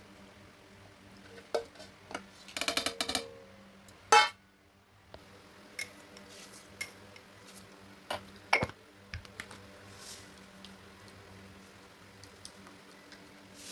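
Kitchen dishes and utensils being handled: scattered clinks and knocks, a quick rattle about three seconds in and a loud knock a second later, over a faint steady hum.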